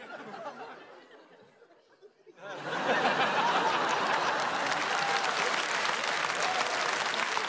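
Studio audience laughing softly, then breaking into loud, sustained applause about two and a half seconds in.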